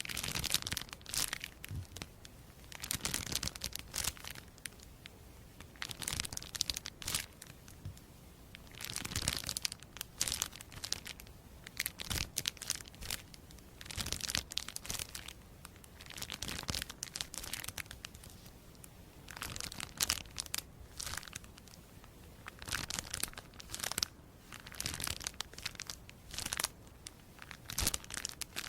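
Crisp crinkling and crackling, made close to the microphone, in irregular bursts every second or two.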